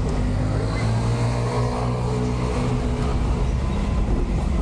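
Truck engine running steadily as the truck drives through a city street, heard from inside the cab, with a low road rumble under the engine note.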